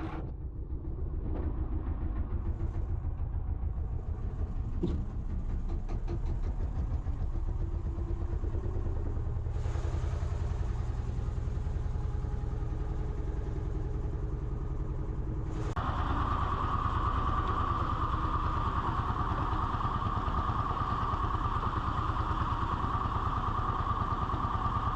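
Fishing boat's inboard engine running steadily with an even, fast pulse. About two-thirds of the way through, a steady whine joins and the engine gets slightly louder, as if throttling up for the race.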